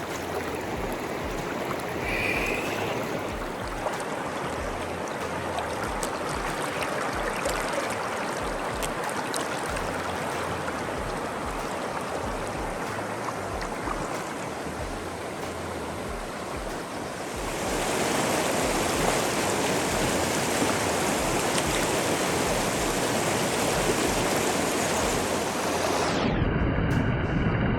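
Fast-flowing river water rushing steadily over rocks, a strong current of cold hill-stream water. The rush grows louder about two-thirds of the way through, then turns duller with a low rumble near the end.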